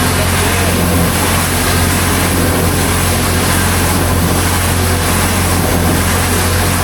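A machine engine running steadily with a constant low hum.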